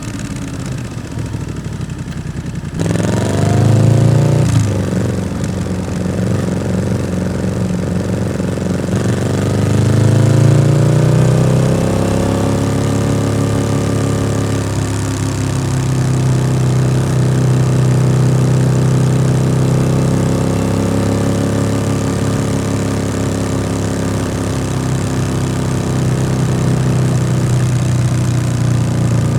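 Yamaha XSR700's parallel-twin engine through an SC-Project aftermarket exhaust, riding off: the engine note rises sharply about three seconds in and drops with a gear change a second or so later. It climbs again and then holds a steady note for the rest of the time.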